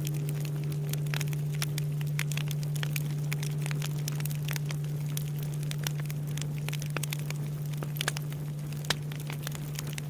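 Bonfire crackling with frequent sharp pops, over the long, steady low hum of a Japanese temple bell (bonshō) dying away after a strike; the bell's higher tones fade out in the first few seconds, leaving the deep hum.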